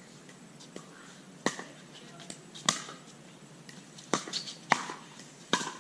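Pickleball rally: paddles hitting the hard plastic ball, a handful of sharp pops about a second apart.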